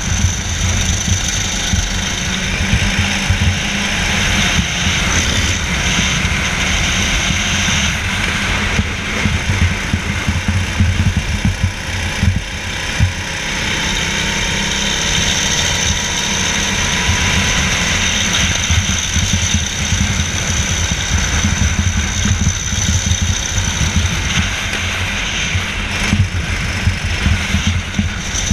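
Onboard sound of a racing kart at speed: the kart's engine running hard under heavy wind rumble on the camera microphone, its faint note rising along the straight about halfway through.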